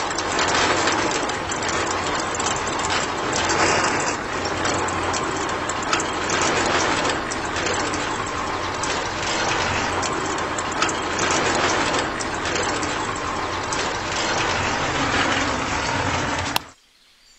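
Small electric motor and gear drive of a handmade miniature concrete mixer running with a steady rattling whir, cutting off suddenly near the end as the mixer is switched off.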